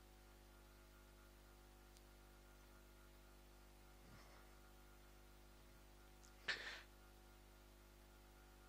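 Near silence: room tone with a faint steady electrical hum. There is a soft short noise about four seconds in and a louder brief one about six and a half seconds in.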